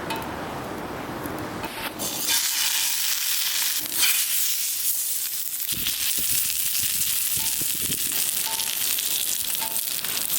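Wind buffeting the microphone, then about two seconds in a steady sizzling starts, like food frying in a hot pan.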